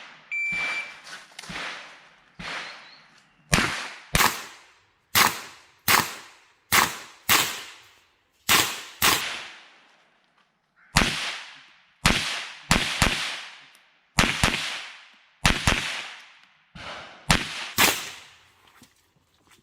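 Shot-timer start beep, then a timed string of about twenty sharp gunshots from a competition small-bore gun, mostly fired in quick pairs with short pauses between pairs, each report followed by a brief echo.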